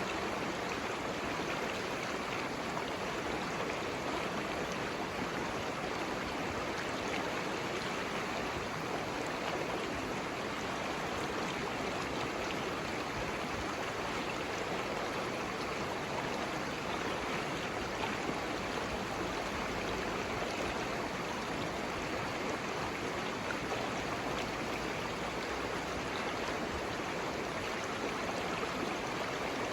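Water flowing steadily in a stream, an even rush without breaks or changes.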